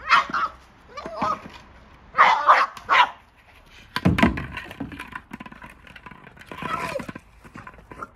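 Boston Terrier barking and yipping in short, excited bursts as it worries a hard plastic Jolly Egg ball, several sharp barks in the first three seconds. About four seconds in comes a thump, followed by quieter scuffling and knocking.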